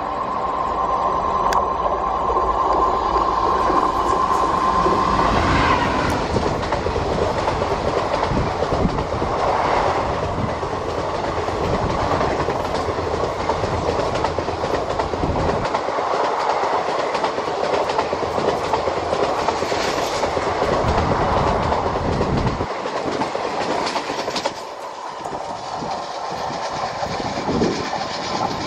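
Indian Railways WAP-4 electric locomotive and its train of ICF coaches passing close by. A steady high note sounds for about the first six seconds, then there is a long, loud rumble of wheels clattering over the rail joints as the coaches go by. The noise drops off a few seconds before the end as the train moves away.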